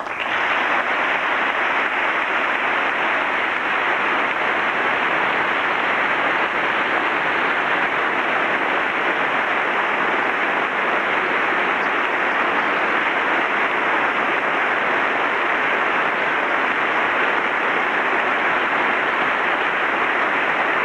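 A large audience applauding in one long, unbroken round, the clapping of hundreds of hands blending into a steady, even roar of applause.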